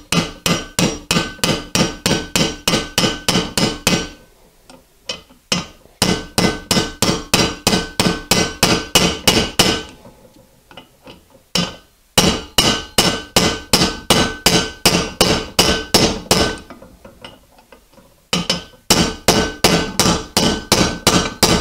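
Small hammer tapping quickly on a large steel socket, driving the outer race of a sealed swing arm bearing into a 1983 BMW R100RS swing arm. Runs of ringing metal taps, about five a second, in four bursts with short pauses between.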